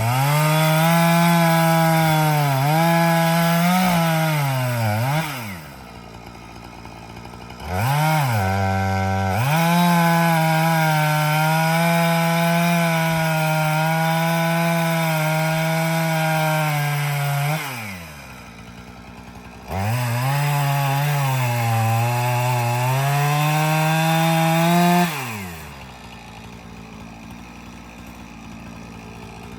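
Two-stroke chainsaw cutting into a tree in three long bursts at full throttle, its pitch sagging and wavering as the chain bites into the wood. Between cuts and near the end it drops back to idle. The sawyer says the chain is dull.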